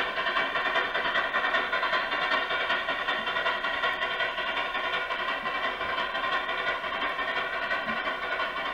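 Electronic steam-locomotive sound from an HO-scale model train's 1980s digital sound system: a steady, rapid chuffing hiss as the model steam engine runs.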